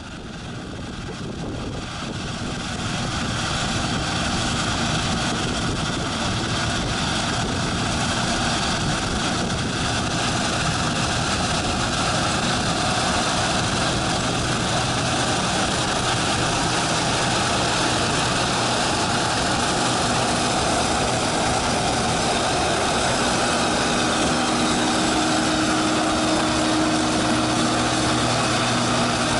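Combine harvester running steadily, a dense even machine noise that builds over the first few seconds and then holds, with a faint steady hum joining near the end.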